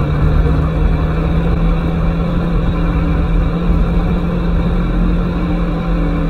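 Aprilia Tuono motorcycle engine running at steady, unchanging revs while riding slowly, with a constant low rumble underneath.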